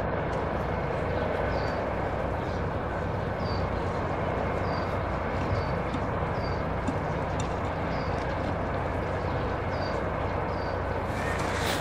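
Steady outdoor rushing noise with a short, high chirp repeating about once a second.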